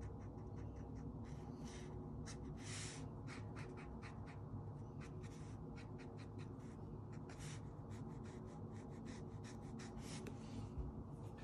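Black alcohol marker nib scratching across paper in many short, irregular strokes, faint over a steady low hum.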